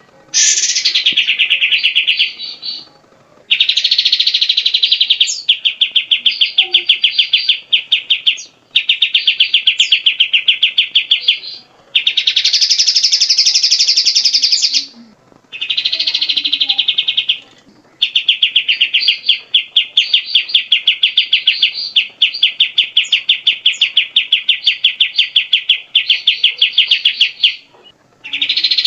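Cucak jenggot (grey-cheeked bulbul) singing loud, rapid pulsed chattering phrases, each two to five seconds long, with short pauses between them.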